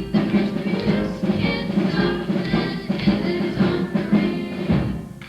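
Instrumental music with a steady drum beat, stopping just before the end.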